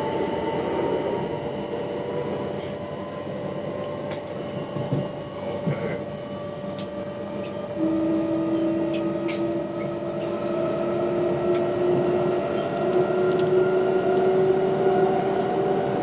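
Class 387 electric multiple unit running, heard from inside the carriage: the traction motors whine in several tones that climb slowly in pitch as the train gathers speed, over a steady rumble of wheels on the rails with a few light clicks.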